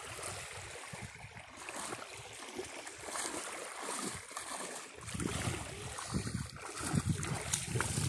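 Shallow sea water splashing as a person wades through it, dragging a fishing net along the water.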